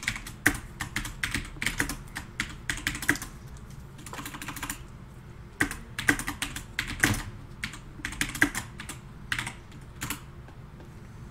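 Glossy Panini Prizm trading cards being handled and flicked through by hand, with a card in a rigid plastic holder: irregular light clicks and snaps, thinning out near the end.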